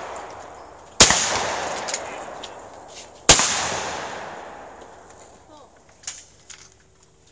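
Shotgun firing twice at clay targets, the shots about two seconds apart, each blast followed by a long rolling echo that fades away.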